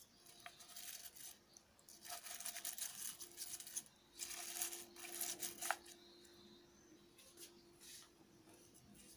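Oil sizzling and crackling in a pan as plantain leaves cook in it and are stirred with a metal spoon, coming in bursts and dying down after about six seconds.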